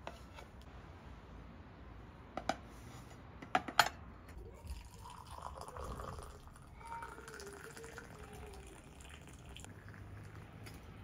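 Liquid being poured into a vessel for a few seconds, after several sharp clinks of dishware or glass.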